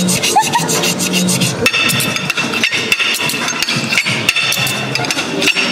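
A steak knife sawing through a steak and scraping against a ceramic plate, in quick rasping strokes at first, then separate knocks of the blade on the plate.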